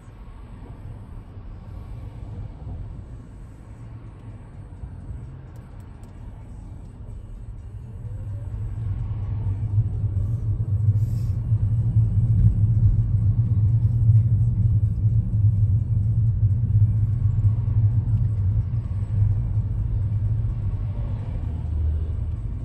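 Car driving on the road: a steady low rumble of engine and tyres, growing louder about eight seconds in and holding there.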